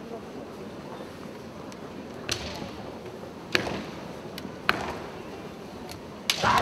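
Bamboo kendo swords (shinai) knocking against each other in three sharp clacks about a second apart as the fighters probe and feint, then a louder burst near the end, over a steady hall background.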